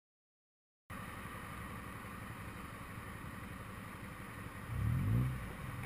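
After about a second of silence, a motorcycle engine running steadily, heard from a camera mounted on the bike; near the end the engine revs briefly, rising in pitch.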